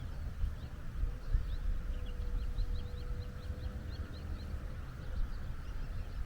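Small birds chirping, a rapid run of short high chirps, over a low rumble.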